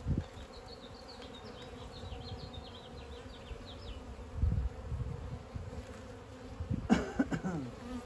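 Honey bees buzzing steadily around an open hive. A few soft knocks come about halfway through, and near the end there is a short, loud squeaking scrape of wood against the wooden hive box as the beekeeper works the frames.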